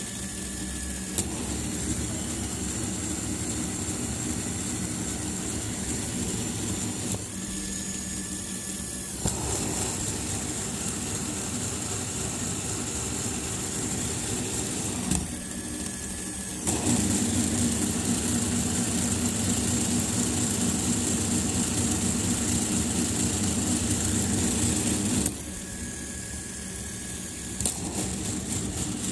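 Lego Technic V16 engine model and gearbox driven by an electric motor on high voltage, the pistons and gears running with a steady mechanical whirr and clatter. Its speed and loudness change in steps several times as the gearbox is shifted by hand, with short clicks from the shift lever; it runs loudest for several seconds in the second half.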